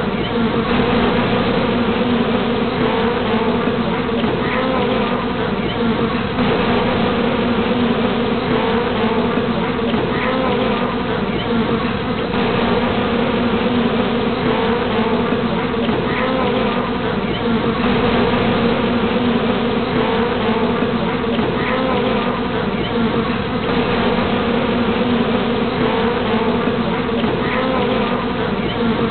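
Honeybee swarm buzzing: a dense, steady hum of many bees.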